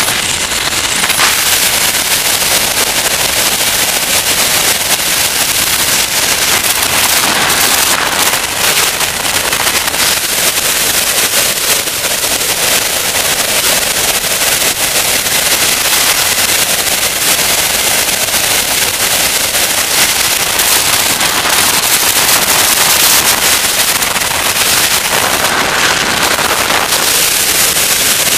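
Loud, steady rushing of wind over a wing-mounted camera, mixed with the crackling drone of a small Avid homebuilt aircraft's engine and propeller in cruise flight.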